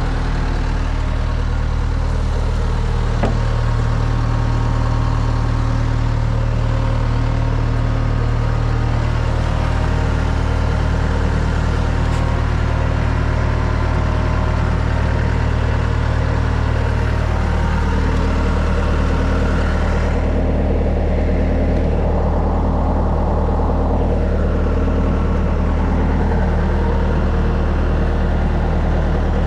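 Bobcat 853 skid steer's engine running steadily. Its note shifts slightly about ten seconds in and again around eighteen seconds in, with some wavering in the sound after that.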